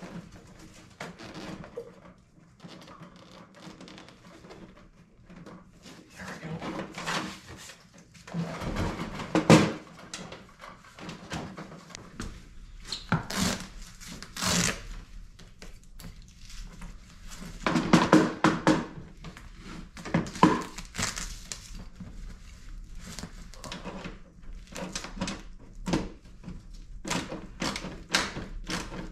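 Hand work on the rear of a snowmobile: irregular knocks, clicks and rustles of the plastic tail section, tank and wiring being fitted, with the loudest knocks about nine and eighteen seconds in.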